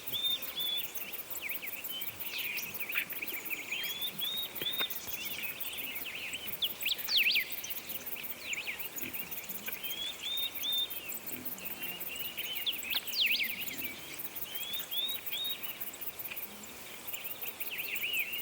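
Several songbirds singing and chirping, one repeating a short high phrase of three or four notes every few seconds between the others' calls.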